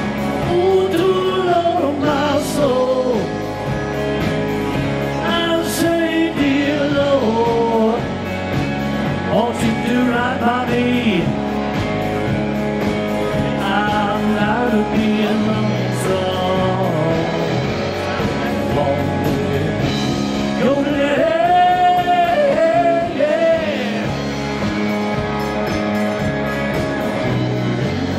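A live band playing a blues-rock song on electric guitars, bass and drums, with a steady beat and a lead line that bends up and down in pitch.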